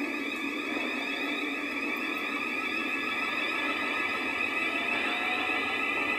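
Class 395 Javelin electric train moving along the platform, its traction equipment giving a steady high-pitched electric whine made of several held tones.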